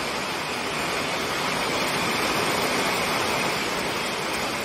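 Heavy rain and wind, a steady rushing hiss that swells a little partway through.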